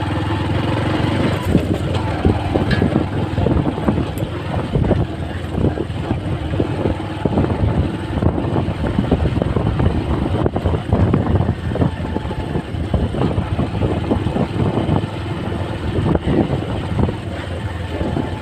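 Motorcycle engine running while riding, heard through a helmet chin-mounted camera, with a continuous rumble and irregular knocks and buffeting throughout.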